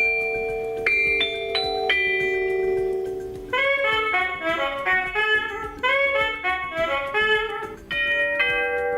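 Honeywell P-1 wireless door chime playing its built-in chime tunes: a few ringing notes stepping downward, then a quicker melody of many notes from about three and a half seconds in, then another falling set of notes near the end.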